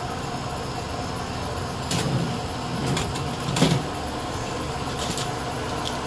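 Ceiling fan running at high speed with a steady whir, with a few sharp clicks and knocks about two, three and three and a half seconds in.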